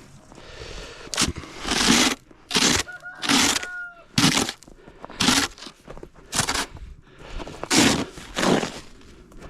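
Packed snow crunching and scraping in about ten separate strokes, irregularly spaced about a second apart.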